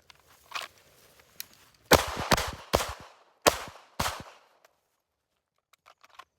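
Semi-automatic shotgun firing a quick string of shots about two seconds in, each a sharp crack with a short echoing tail, after a lighter report earlier; a few faint clicks follow near the end.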